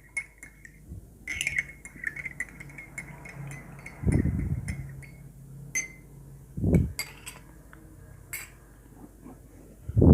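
Metal spoon stirring a liquid in a glass, clinking repeatedly against the sides with a short ringing note, and three dull knocks spread through it.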